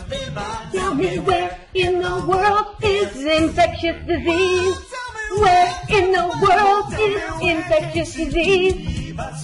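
A woman singing a parody song over backing music, the melody moving between held notes and quick runs, with brief breaks between phrases.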